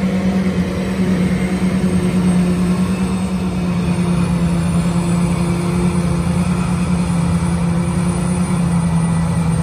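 John Deere 8600 self-propelled forage harvester running under load while chopping hay: a loud, steady engine and machine drone that dips slightly in pitch about halfway through.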